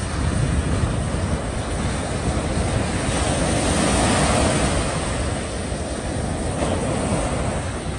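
Small waves breaking and washing up a sandy beach: a steady rush of surf that swells a little about halfway through, with wind rumbling on the microphone.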